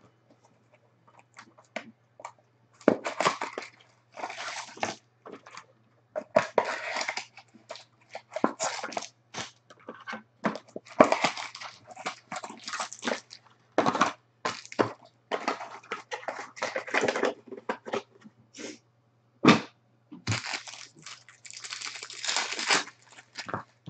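Cellophane wrapping on trading-card boxes and packs crinkling and tearing as hands pull it off, in irregular bursts of rustling, sparse for the first few seconds and then almost continuous.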